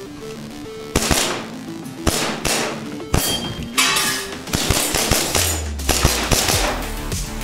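EMG Staccato C2 airsoft gas blowback pistol firing a string of single shots, about a second apart at first, then faster in the second half, over background music.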